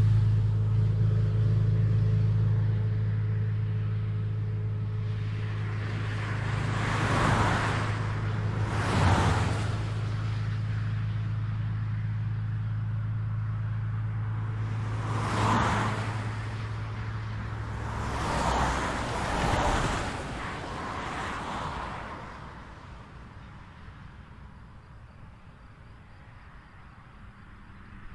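Highway traffic: several cars pass one after another, each a swell of tyre and engine noise that rises and fades, over a steady low hum that stops about two-thirds of the way through. Near the end the road goes quieter, leaving a faint traffic hush.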